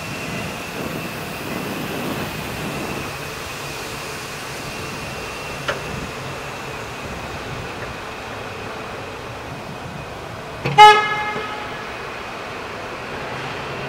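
Steady industrial background hum of a large plant floor with a faint high whine. About eleven seconds in, a single loud, pitched horn toot lasting about a second.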